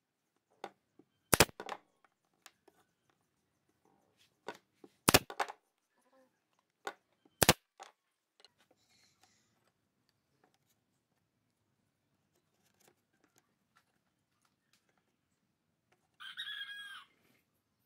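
Sharp knocks and clacks of small pine pieces and tools being handled on a wooden workbench, three of them loud and spread over the first eight seconds, with fainter taps between. Near the end a brief pitched squeak lasts about a second.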